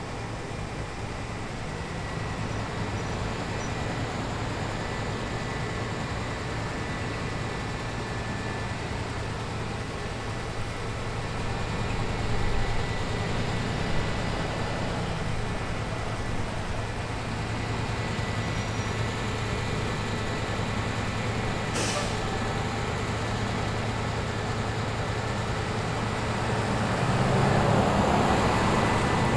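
Street traffic with a heavy vehicle's engine running as a steady low hum. A short sharp hiss comes about 22 seconds in, and a vehicle swells louder as it passes near the end.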